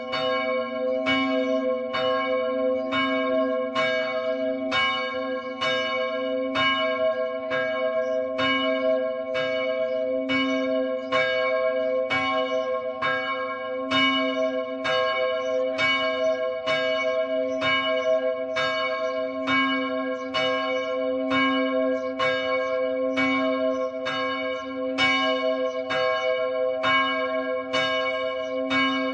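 A church bell tolling in rapid, evenly spaced strokes, about one and a half a second. Each stroke's ringing carries on under the next, so the bell's hum never dies away.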